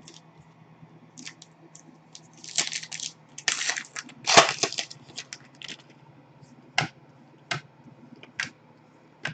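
Foil wrapper of a Panini Select trading-card pack crinkling loudly as it is opened, followed by a few sharp clicks of the cards being handled.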